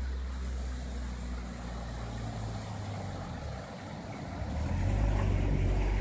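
A car's engine running as it drives up the road toward the listener, growing louder near the end.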